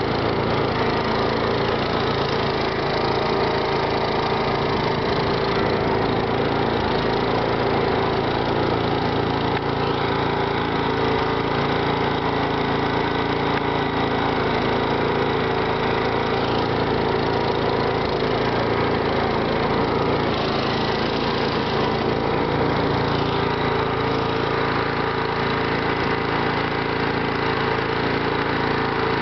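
A motor running steadily at an even, unchanging pitch.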